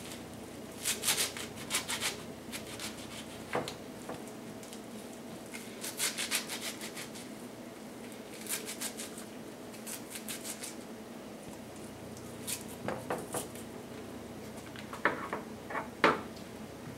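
A kitchen knife cutting through a handful of leafy salad greens held in the hand, in short runs of quick, crisp strokes with the leaves rustling. A few sharper knocks come near the end.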